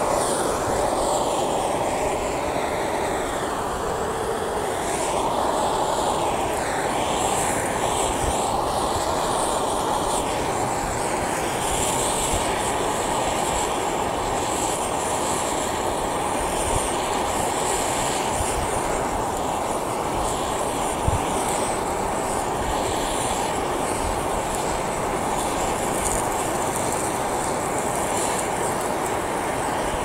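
Handheld gas torch burning with a steady hiss while its flame plays on a coffee maker that is on fire, with one sharp pop about two-thirds of the way through.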